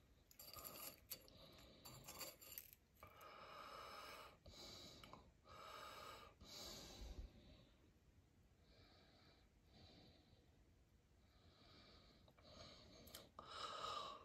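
Near silence: soft breaths close to the microphone, with a few faint clicks of wooden chopsticks against a ceramic plate.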